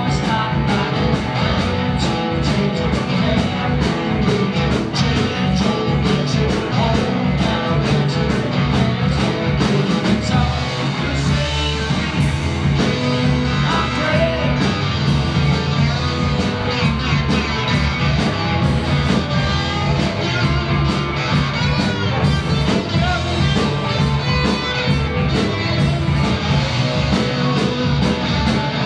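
Live rock band playing: electric guitars through Marshall amps over bass and drums, with a steady driving beat.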